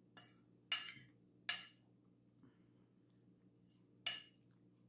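A metal fork clinking against a plate of food: a faint tap at the start, then three clear short clinks about 0.7 s, 1.5 s and 4 s in.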